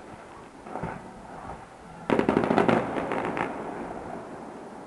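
Distant fireworks: a few small cracks about a second in, then a rapid volley of sharp cracks just after two seconds that lasts over a second and fades out slowly.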